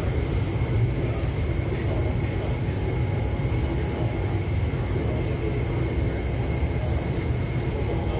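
Cabin noise of an MTR East Rail Line SP1900 electric train running: a steady low rumble with a faint, steady high whine over it.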